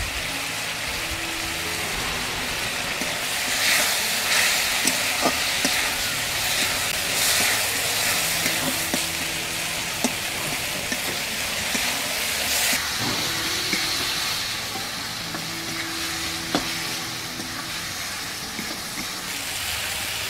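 Onion-tomato masala sizzling in mustard oil in a metal kadai, with a steady frying hiss that swells a few times as it is stirred. A flat metal spatula scrapes and taps against the pan now and then.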